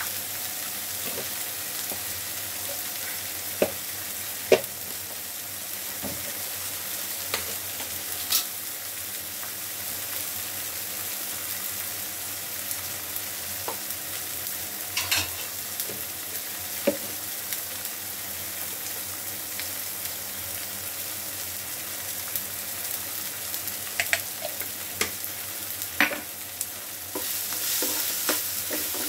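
Onions and tomatoes sizzling in a frying pan, with a few sharp clicks and taps along the way. Near the end a metal spoon starts stirring the pan and the sizzling gets louder.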